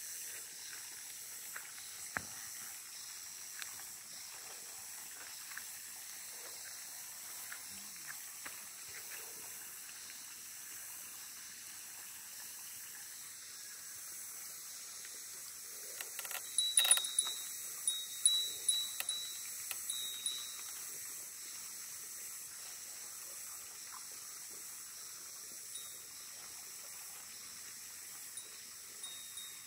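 Faint, steady high-pitched hiss of outdoor background. About halfway through comes a short run of sharp clicks and brief high tones lasting a few seconds.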